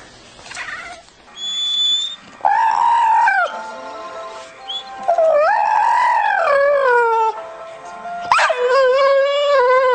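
A pet animal howling in three long drawn-out pitched calls. The first is short, the second swells and falls over about two seconds, and the third, starting near the end, is long and wavers up and down.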